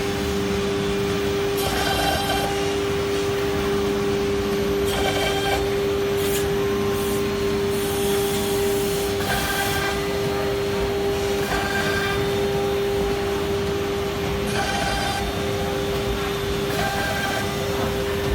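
Single-head CNC wood router at work: a steady high spindle whine, broken every second or two by short bursts of higher, rising-and-falling tones as the machine moves and cuts.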